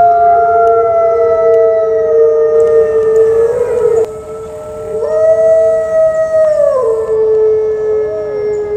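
Two Mexican gray wolves howling together, each holding a long, nearly level note, one voice pitched clearly above the other. The higher howl stops about three and a half seconds in, comes back at about five seconds, and slides down to the lower pitch near seven seconds.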